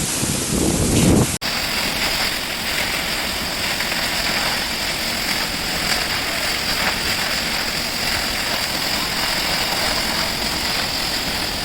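Steady rush of falling water from a waterfall. About a second and a half in, a sudden cut replaces wind buffeting on the microphone with the even water noise.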